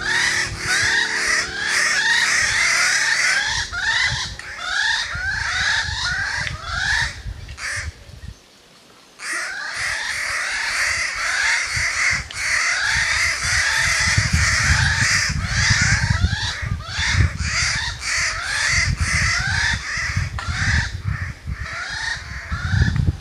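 A flock of birds calling noisily: many short, sliding calls that overlap into a constant chatter. It breaks off for about a second partway through, and a low rumble comes in underneath during the second half.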